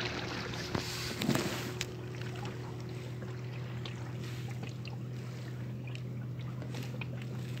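Boat motor idling low and steady, with a few knocks in the first two seconds.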